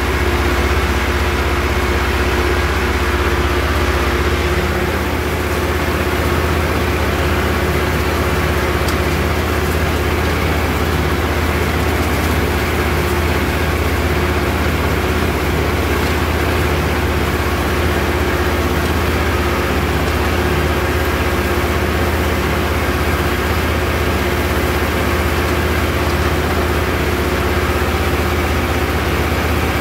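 Tractor engine running steadily under load, heard from the driver's seat, as it pulls and drives a rotary hay tedder.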